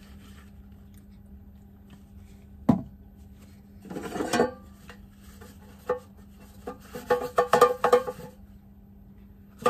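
Greasing an air fryer basket with an oiled napkin: a sharp click, a short rustle, then the napkin rubbed around inside the basket, scraping and knocking against it in a quick run of ringing knocks near the end. A steady low hum runs underneath.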